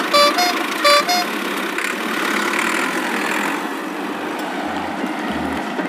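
A vehicle horn toots twice in quick double notes within the first second or so, then a steady engine-like running noise carries on.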